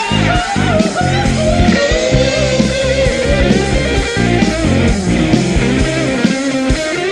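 Studio recording of a rock song: electric guitar, bass guitar and drums, with a sung melody over them.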